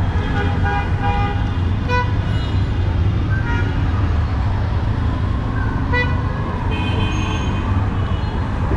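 Busy city street traffic: a steady rumble of engines with several short horn toots from passing vehicles.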